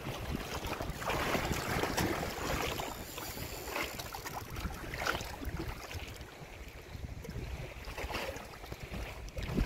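Wind buffeting the microphone over open water. Small splashes come now and then as a hooked fish thrashes at the surface while it is played in.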